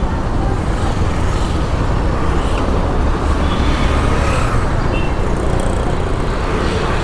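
Motorcycle ridden slowly through street traffic: a steady low engine drone mixed with road and traffic noise.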